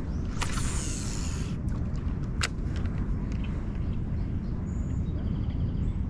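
Outdoor pond ambience dominated by a steady low rumble. A brief hiss comes about half a second in, with a sharp click or two, and faint high chirps sound near the end.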